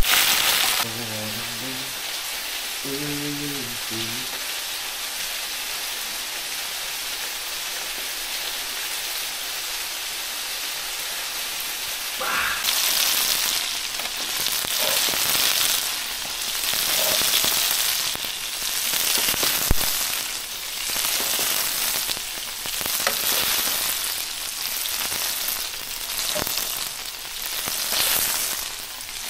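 Chicken pieces sizzling in oil and barbecue glaze in a frying pan, a steady hiss. From a little under halfway in the sizzle grows louder and swells and eases every second or two as the pieces are stirred and turned with tongs, with a few sharp knocks of the utensil on the pan.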